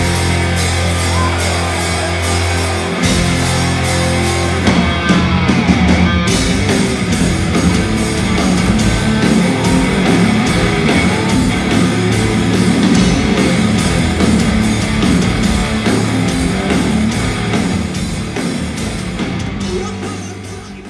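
Hard rock band playing: electric guitar and drums, with long held low notes for the first few seconds before the playing gets busier, then fading out near the end.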